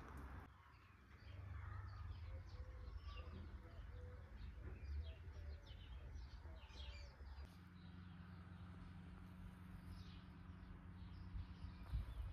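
Small birds chirping outdoors: many short, quick calls for most of the first eight seconds, thinning out after that, over a faint steady low rumble.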